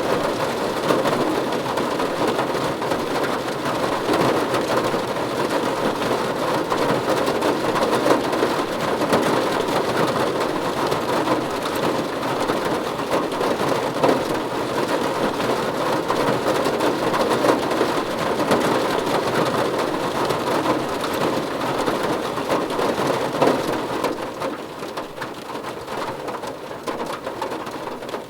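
Steady rain drumming on a car's roof and windows, heard from inside the car, a dense patter of drops that eases off somewhat near the end.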